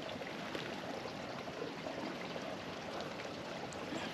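Small stream trickling steadily, an even rush of water with light ticks.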